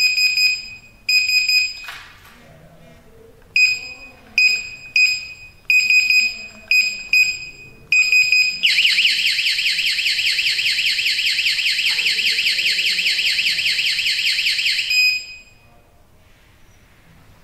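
RFID keypad access controller's buzzer giving a series of short, high beeps as cards or keys are entered. Then, about nine seconds in, a loud warbling alarm starts and runs for about six seconds before stopping. This is the alarm the unit sounds after repeated invalid cards or wrong PINs.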